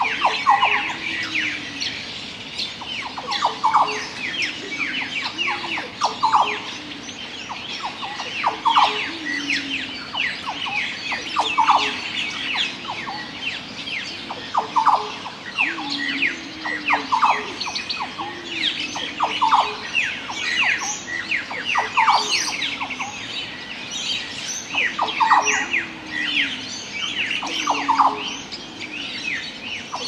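Tropical bird chorus with the yellow oriole among many other species: dense overlapping chirps and quick falling whistles, with one call repeating about every two and a half seconds.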